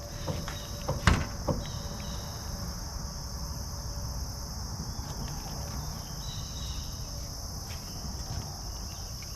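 Steady shrill insect chorus, crickets, with a couple of sharp clicks about a second in.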